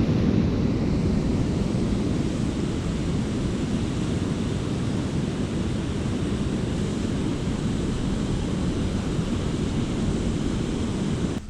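Steady rushing noise of water pouring over the dam and the fast river current below it, deepest in tone, which cuts off suddenly at the end.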